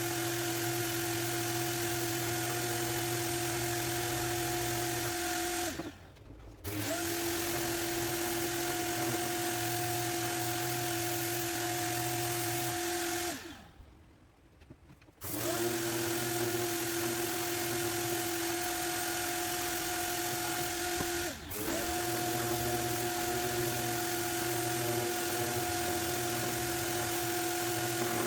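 Prepmate 2 150 mm brushless random orbital electric sander running at a steady pitch with a hiss, switched off and on three times: a short break about six seconds in, a longer stop in the middle where it winds down and spins back up, and a brief dip later on.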